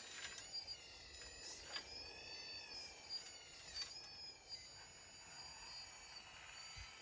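Radio-controlled model excavator's electric motor whining, rising and falling in pitch as the boom and bucket move, with a few light knocks as dirt drops from the bucket into the model dump truck's bed.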